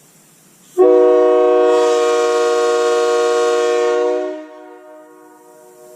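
Nathan Airchime K3H five-chime locomotive air horn sounding one long blast of about three and a half seconds, a chord of several notes that starts suddenly about a second in. After it cuts off, a much fainter tail of the chord lingers for a couple of seconds.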